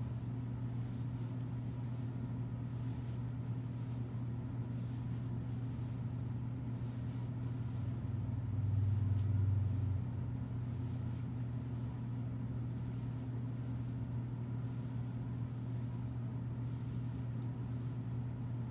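Steady low hum, swelling louder for about two seconds partway through.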